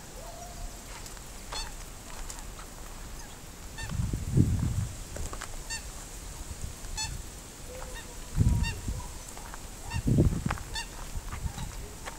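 Birds, likely geese, giving short honking calls over and over. A few louder low rumbles come about four, eight and a half and ten seconds in.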